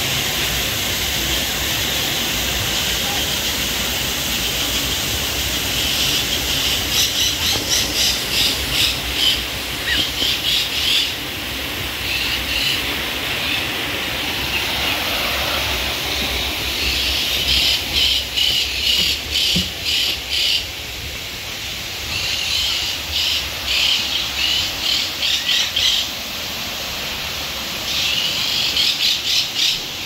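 Forest aviary ambience: bursts of rapid, pulsing high-pitched animal calls, each lasting a few seconds, recurring every few seconds over a steady high background chorus.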